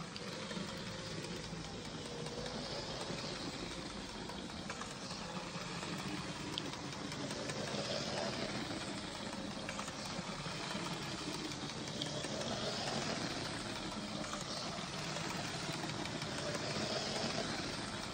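LEGO City 60198 Cargo Train's battery-powered motor running, the train's wheels rolling around plastic track. The steady whir swells and fades gently every few seconds as the train circles the layout.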